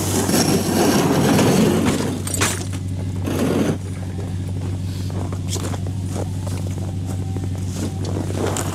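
A vehicle engine idling with a steady low hum, while a Clam Nanook flip-up shelter's sled and gear are scraped and knocked about as they are loaded into the truck. A long scrape fills the first two seconds, a sharp knock and then a thump follow about two and a half and three and a half seconds in, and small knocks and rattles come after.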